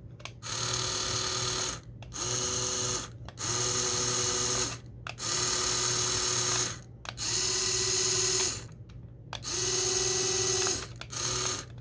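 Small brushed DC toy motors whirring in short runs as they are switched on and off by remote control, about seven bursts of one to two seconds each with a steady whine, several of them close together near the end.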